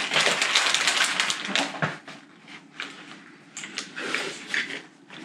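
A soft carry case packed with drone gear being pressed and closed by hand: a dense rasping rub for about two seconds, then quieter scattered clicks and short scrapes.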